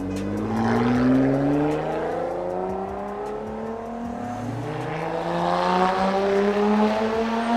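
Lotus Evora 400's supercharged V6 accelerating hard, its note rising steadily through two long pulls, the second starting about four seconds in.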